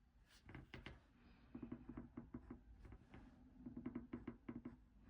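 Faint pencil strokes on drawing paper: two runs of quick, short, repeated marks.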